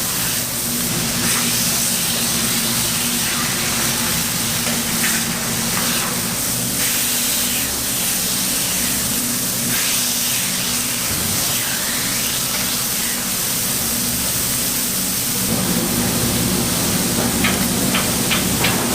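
Meat sizzling on a hot grill in a steady hiss, with a quick run of sharp clicks near the end.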